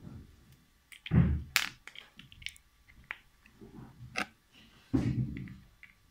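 Handling noise from a recessed ceiling spotlight's driver box, cable and metal fitting being worked by hand: scattered sharp clicks and knocks, with two dull thumps, the loudest about a second in and about five seconds in.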